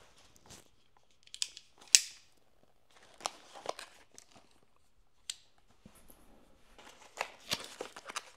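A small product box being opened by hand and its paper packing crinkled: scattered clicks and rustles, with a sharp snap about two seconds in as the loudest, and busier crinkling near the end.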